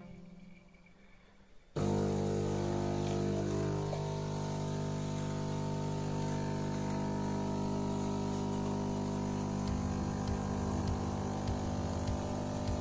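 Philips 2200 LatteGo espresso machine's pump switching on abruptly about two seconds in and then humming steadily while it pushes coffee out of the spout; from about ten seconds in a flickering pulse joins the hum.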